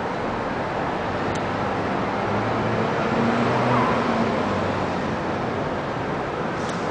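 Steady city traffic noise, with one vehicle's low engine hum swelling and fading about three to four seconds in.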